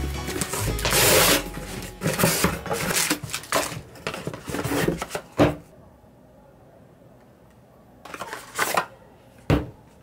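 Cardboard box and product packaging being opened and unpacked on a table: irregular rustling and scraping with sharp clicks and knocks. After a couple of quiet seconds there are a few more rustles and a sharp knock near the end.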